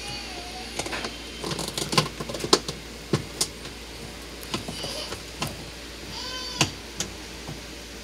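Plastic clicks and knocks as a lint-filter cartridge is pushed and snapped into place on the wall of a top-load washing machine tub, the sharpest about two and a half seconds in. A few short, high-pitched squeaky vocal sounds break in briefly, around the start and again past the middle.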